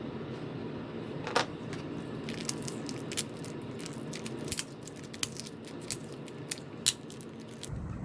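Irregular sharp clicks and light taps of small tools and phone parts being handled during a phone screen repair, one near the start and a quick run of them through the second half.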